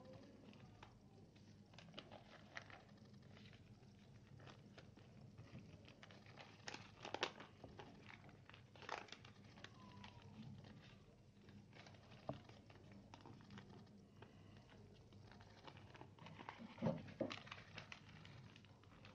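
A sheet of paper being folded and creased by hand: faint, irregular rustles and crinkles, with a few sharper crackles about seven, nine and seventeen seconds in.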